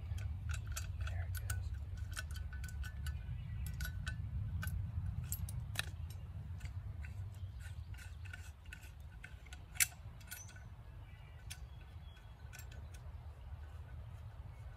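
Metal clicks and ticks of a folding camp shovel being opened and its parts worked into place: an irregular run of small sharp clicks, several a second at times, with one louder snap about ten seconds in. A steady low rumble runs underneath.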